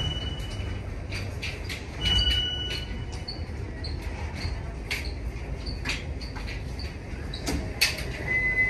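Train rumble echoing in an underground railway station, with a few brief, thin, high-pitched squeals of wheels on rail and scattered sharp clicks.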